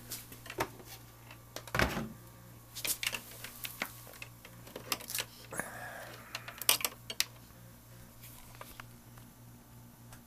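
Clicks and knocks of plastic buckets being handled as a thermometer probe goes into the water, with one louder knock about two seconds in, over a low steady hum.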